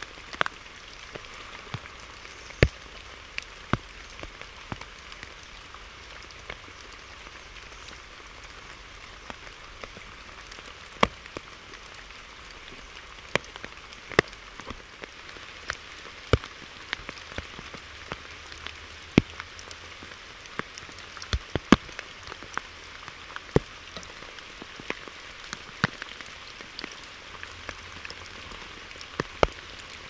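Steady rain, with large drops landing in irregular sharp taps, a few much louder than the rest.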